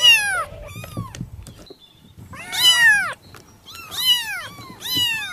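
A cat meowing repeatedly: about five rising-and-falling meows, the first the loudest and the one near the middle the longest.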